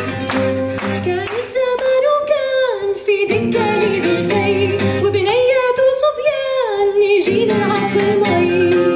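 A woman singing a slow, ornamented Middle Eastern vocal line with long, wavering held notes. The band's oud, lavta and hand percussion drop away about a second in, leaving the voice almost alone, and come back in near the end.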